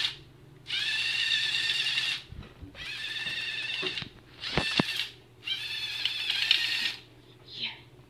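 LEGO EV3 robot's electric motors and gear trains whining in four bursts of a second or so each, as the tracked robot is driven by infrared remote control. A couple of sharp knocks come around the middle.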